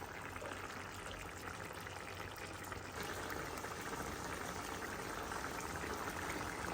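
Chicken pieces boiling in a pan of water, with a steady bubbling and popping that gets a little louder about halfway through.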